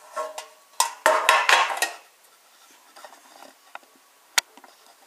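Handling noise of a small metal tin and a plastic-wrapped toy train set: a few knocks, then a burst of metallic clinks and clatter about a second in, followed by light taps and one sharp click near the end.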